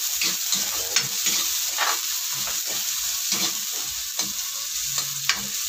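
Chopped garlic and onion sizzling in hot oil in a metal wok, with a spatula scraping and tapping against the pan in irregular strokes about twice a second.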